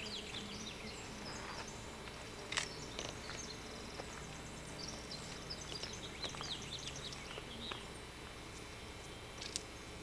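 Quiet outdoor ambience with scattered short bird chirps in the surrounding trees, and two sharp clicks, one about two and a half seconds in and one near the end.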